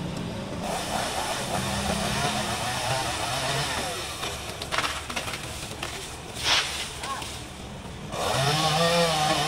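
Chainsaw engine running up in the tree, ticking over at first, then revved up and louder from about eight seconds in. A brief sharp hiss comes about six and a half seconds in.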